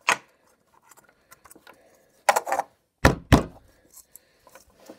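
Thin cut aluminum bottle pieces knocking and clinking as the cut top is pushed down into the cut bottom. There is a few sharp knocks, and the two loudest, heavy thunks come about three seconds in, with light scraping ticks in between.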